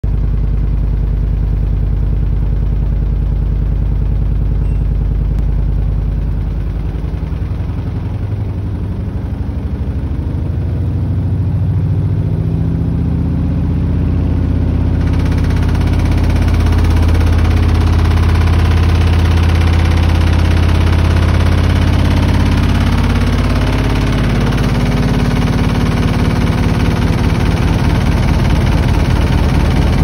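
LG front-loading washing machine in its spin cycle with an unbalanced load, the drum and motor giving a loud, steady low rumble and vibration. About halfway through the spin picks up and the sound turns louder and brighter with a whirring hiss.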